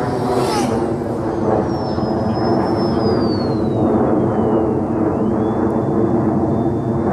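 Nanoplanes Babyshark RC plane's electric motor and propeller whining at speed on a 4S battery, the pitch sliding down as it passes over and then holding steady. Under it runs a louder, steady low rumble.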